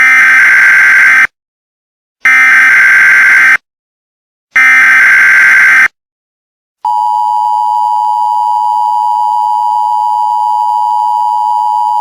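Emergency Alert System header: three harsh, buzzing digital data bursts of about a second each, a second apart. They are followed about seven seconds in by the long steady two-tone EAS attention signal, the tones that announce that an alert message is about to be read.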